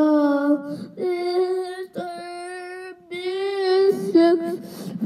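A boy singing into a handheld toy microphone: about four long held notes of roughly a second each, the first rising, then a few quick short notes near the end.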